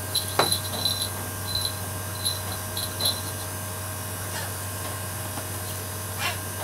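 Brahminy kite flapping off a gloved hand onto a perch, with a thump about half a second in and a string of short high-pitched notes over the first three seconds.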